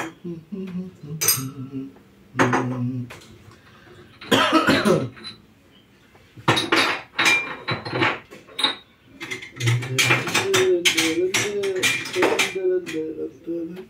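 Dishes and kitchenware clinking and clattering as they are handled, a string of sharp knocks and clinks throughout, with voices talking in between.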